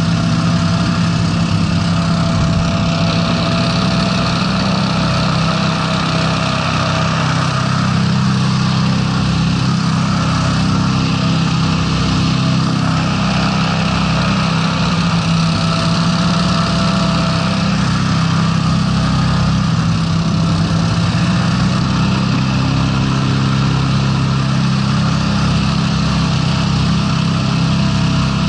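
Breeze 420 hovercraft's Honda 690 V-twin engines running steadily, heard from on board, with the lift and thrust fan's air rush and water spray over them.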